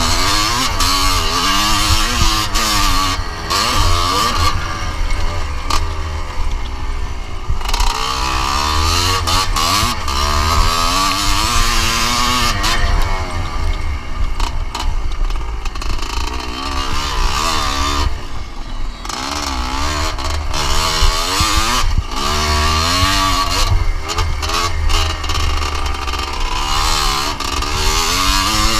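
A 1981 Yamaha YZ250 two-stroke single-cylinder motocross engine under hard riding, its revs climbing and dropping over and over through the gears, with a few brief throttle-offs.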